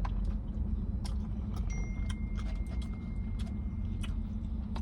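A fork clicking and scraping against a food container during eating, in short irregular taps, over a steady low hum.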